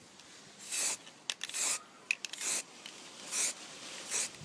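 Aerosol can of acrylic spray paint giving five short hissing bursts, each about a quarter of a second, just under a second apart, with faint clicks between them. This is light dusting of paint onto a model.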